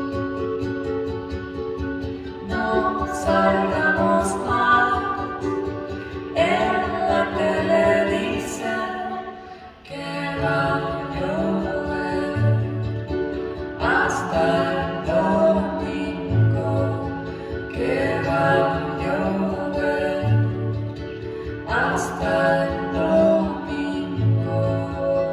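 Live acoustic duo: a woman singing a gentle song, with an acoustic guitar and a smaller strummed string instrument. The music thins out briefly about ten seconds in, then comes back fuller with low guitar bass notes.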